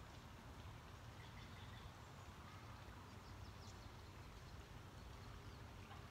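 Near silence: faint outdoor ambience with a steady low rumble and a few faint, brief bird chirps, a quick little flurry of them about halfway through.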